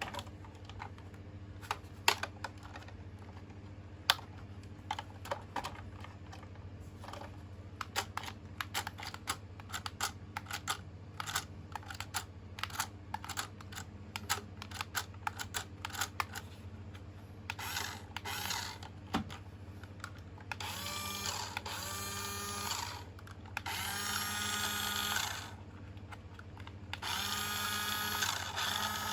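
Rapid plastic clicks and taps from handling a toy, then, from about two-thirds of the way in, four bursts of electronic sound effects from the remote-control fire rescue truck's sound unit, each a second or two long.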